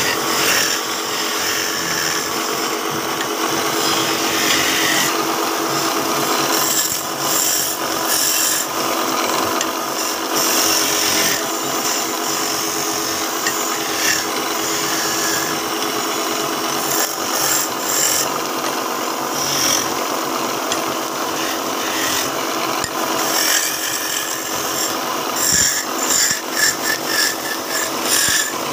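Wood lathe turning a wooden cot leg while a hand-held chisel scrapes and shaves the spinning wood: a continuous rasping cut over the machine's steady hum, becoming choppier and more uneven near the end.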